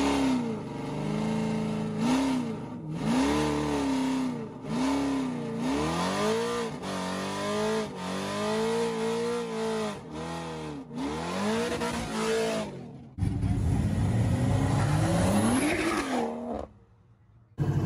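Chevrolet Camaro 2SS's LT1 V8 being revved again and again while held stationary, each rev rising and falling in pitch every second or two. Near the end comes a steadier engine sound with one more rising rev.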